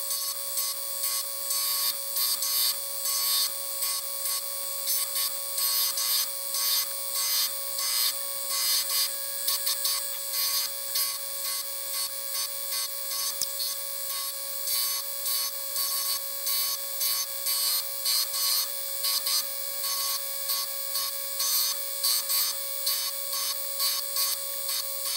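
Belt grinder running with a steady whine while a 1095 carbon-steel knife blade is pressed against the belt in repeated short passes, each pass adding a harsh grinding rasp about once a second, as the blade's bevels are shaped before heat treatment.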